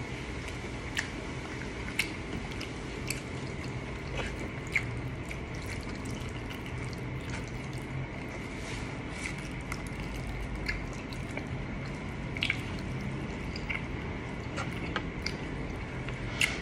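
People eating fried chicken and spaghetti: wet chewing, finger-sucking and lip smacks, with sharp mouth clicks every second or two over a steady low background hum.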